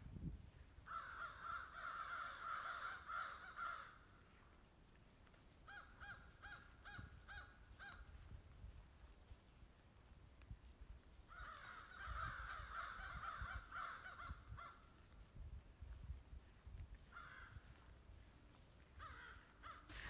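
Wild birds calling: two stretches of harsh calling, about a second in and again about eleven seconds in, each lasting about three seconds. Between them comes a quick run of about six short repeated notes.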